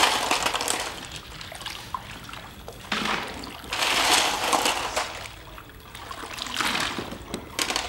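Liquid sloshing and splashing in three swells a few seconds apart, with the loudest at the start and from about three to five seconds in.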